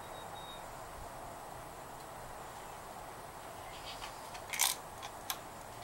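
A few light clicks and a short clatter, from the metal housing of a 1969 VW Beetle speedometer being handled and turned over in the hands. They come about four seconds in, the loudest a quick cluster near the middle of that stretch and one last sharp click just after, over a faint steady hiss.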